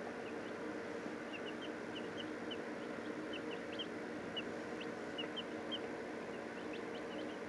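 A young, partly feathered chick peeping: short, high notes, each falling slightly, coming in loose runs from about a second in. A steady low hum runs underneath.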